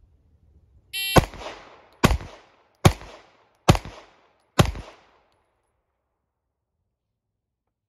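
An electronic shot timer beeps about a second in. Right after it, a Staccato XC 9mm compensated 2011 pistol fires five shots at a slow, even pace just under a second apart, each a sharp crack with a short echo.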